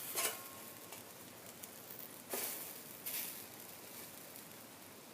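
Banana pancakes sizzling faintly in a frying pan, with a few short scrapes of a spatula against the pan as the pancakes are turned.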